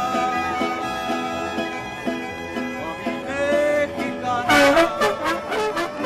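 Mariachi band playing: strummed guitars keep a steady beat under a violin melody. Trumpets come in loudly about two-thirds of the way through.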